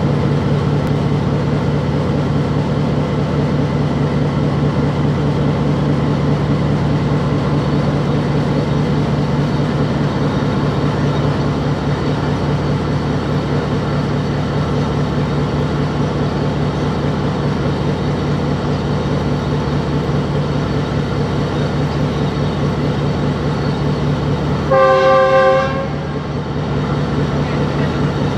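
GE GEU-20 diesel-electric locomotive's 12-cylinder GE 7FDL-12 prime mover running hard with a steady, fast chugging beat, heard close up from the cab side as the train gathers speed. Near the end the horn sounds once for about a second.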